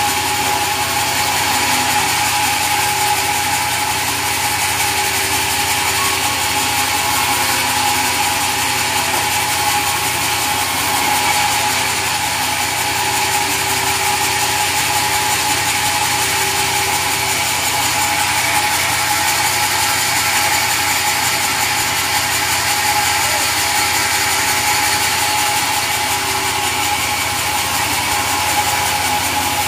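Sawmill saw machinery running steadily: a constant mechanical whine with a dense noisy wash, unchanging throughout.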